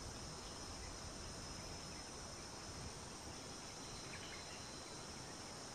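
Faint, steady high-pitched chorus of insects in the bush, with a faint low rumble underneath.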